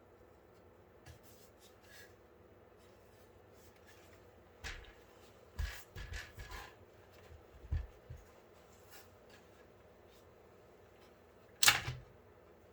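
Knocks and clunks of a PC case and its panels being handled: a scattering of them from about five seconds in, then one sharp, louder knock near the end.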